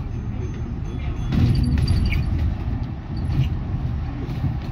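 Inside a moving double-decker bus: a steady low rumble of engine and road noise, with a few light rattles from the bus's fittings about a second and a half in.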